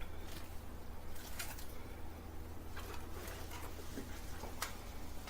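Scattered soft clicks and rustles over a steady low hum.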